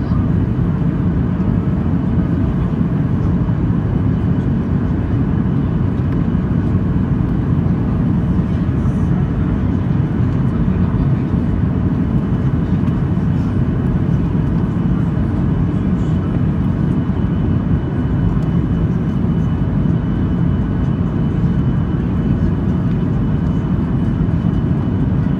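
Steady in-cabin drone of a Boeing 737-800 in flight, its CFM56 turbofan engines and the airflow over the fuselage making a deep, even rumble with a faint thin whine running through it.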